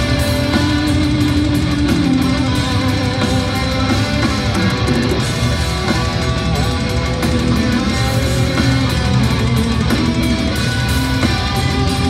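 Death metal band playing live at full volume: distorted electric guitars over bass and drums, dense and unbroken throughout.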